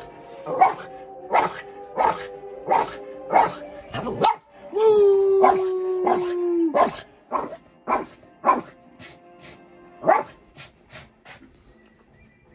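Dog barking in a steady series, about one and a half barks a second, breaking into a drawn-out howl of about two seconds near the middle, with music playing underneath.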